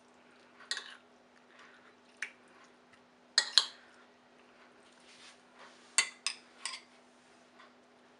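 Metal spoon clinking and scraping against a ceramic plate while stirring raw chicken wings in a marinade, in irregular clinks, some in quick clusters of two or three.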